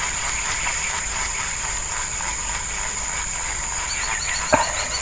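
Insects droning steadily at a high pitch. Near the end, a run of short chirps joins in, about three a second, and a single brief sharp sound comes about four and a half seconds in.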